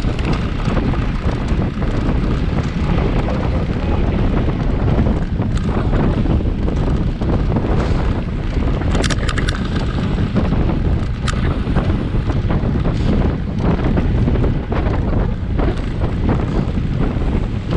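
Wind buffeting the microphone: a steady, heavy low rumble, with a few faint sharp clicks about halfway through.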